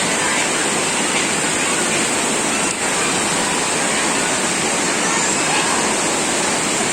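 A natural waterfall's water pouring and splashing in a steady, loud rush.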